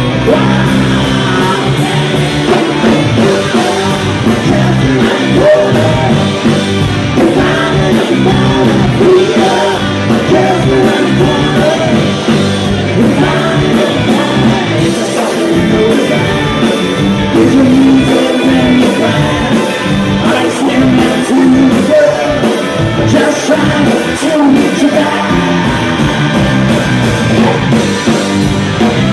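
Live rock band playing loudly: electric guitar, keyboard, bass and drums, with a man singing.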